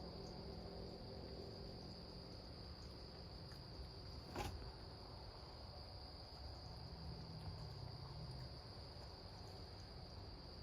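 Crickets chirping in a steady night chorus, one constant high trill. A single sharp knock about four seconds in.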